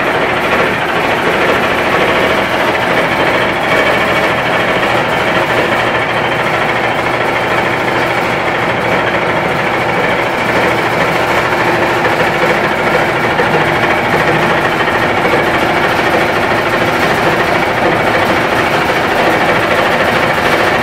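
Industrial centrifuge with a stainless-steel drum running: a loud, steady mechanical noise of the motor and spinning drum that holds even throughout.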